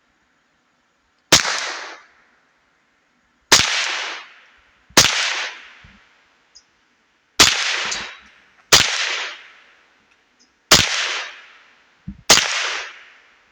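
Ruger 10/22 semi-automatic .22 LR rifle firing seven unhurried single shots, one every one and a half to two and a half seconds. Each crack trails off in a short echo.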